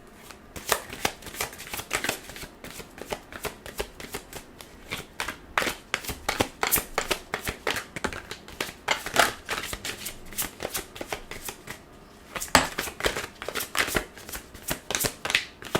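A deck of tarot cards being shuffled by hand: a quick, steady run of card flicks and riffles, thinning briefly about eleven seconds in.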